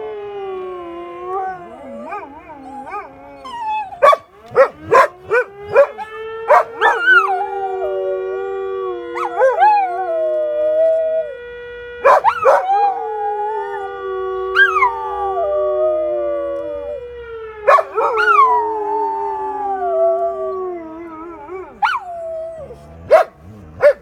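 Dogs howling along with a siren, their wavering howls rising and falling over the siren's steady tone. Runs of sharp yips and barks break in a few seconds in, again about halfway, and near the end.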